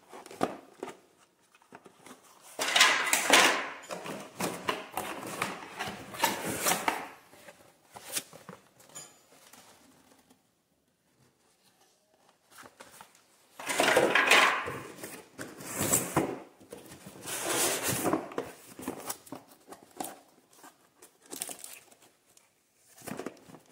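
Rustling and crinkling of packaging as a vacuum cleaner accessory is unwrapped by hand, in several uneven bursts with a short quiet pause near the middle.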